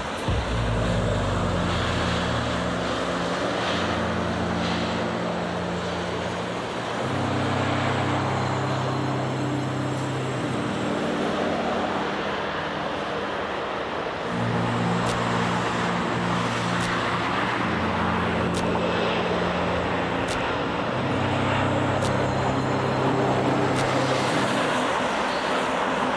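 Slow background music: held chords over a bass line that changes about every three and a half seconds, with a steady rushing noise underneath.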